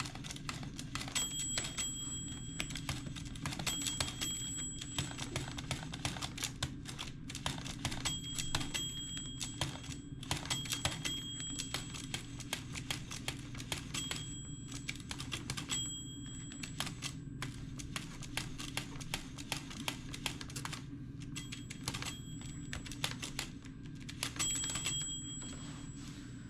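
Monroe Model L-200 manual mechanical calculator being cycled over and over, a dense clatter of gears and clicks. A short, high ringing note recurs every couple of seconds.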